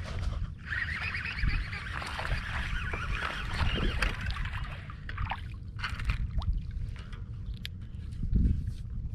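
Baitcasting reel winding in line as a small largemouth bass is fought to the boat, with wind buffeting the microphone. There are short clicks in the middle and a louder burst near the end as the fish reaches the surface.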